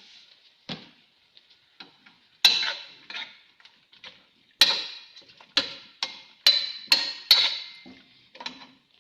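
A metal cooking utensil clanking against a cooking pot while the chicken is stirred. About half a dozen sharp, ringing hits come between about two and a half and seven and a half seconds in, over a faint sizzle.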